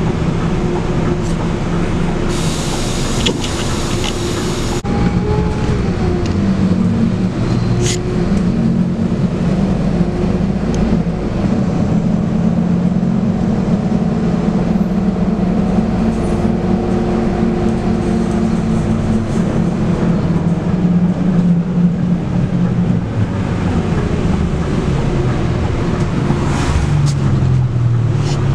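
Scania K280UB bus's DC9 five-cylinder diesel engine running under way, its note rising and falling with road speed. A loud hiss lasts about two and a half seconds, starting about two seconds in. Near the end the engine note falls.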